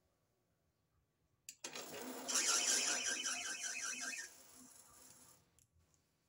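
Metal lathe started with a click about a second and a half in, its spindle running while a threading tool cuts an M10 x 1.0 thread, a harsh hissing cut for about two seconds, then the lathe running down and stopping near the end.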